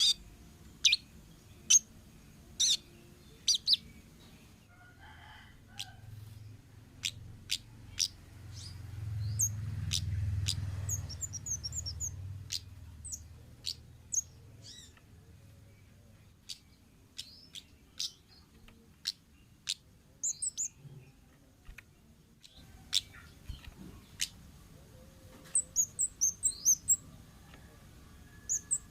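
Wild kemade bird calling: short, sharp, high chips at irregular intervals, then a rapid run of quick notes near the end. A low rumble rises and fades about a third of the way in.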